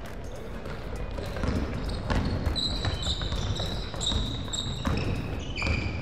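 A basketball dribbled on a gym floor in repeated bounces, with sneakers squeaking on the court from about two and a half seconds in.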